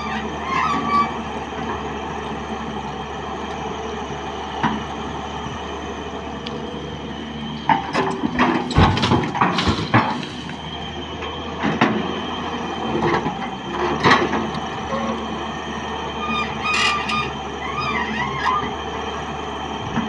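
Hyundai 210 excavator's diesel engine running steadily under hydraulic load as it digs and swings. About eight seconds in, a bucketful of soil and stones pours into a steel tipper body, a loud clattering rush lasting about two seconds, with further knocks later and a few brief high squeals near the start and again after sixteen seconds.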